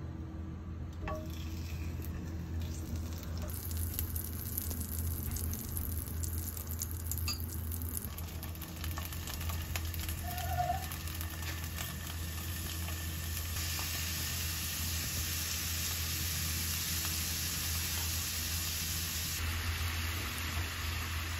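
Butter sizzling in a hot frying pan, with the sizzle growing louder about two-thirds through as rice and strips of beef fry in it. A steady low hum runs underneath.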